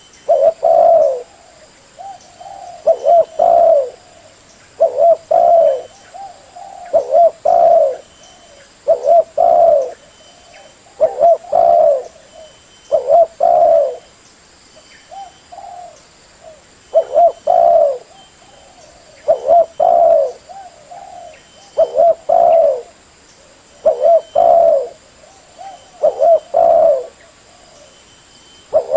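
Spotted dove cooing: a short phrase of a few notes, repeated about every two seconds.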